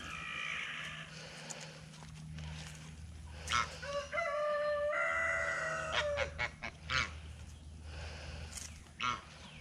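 Domestic geese honking several times, the longest call held for about two seconds midway through.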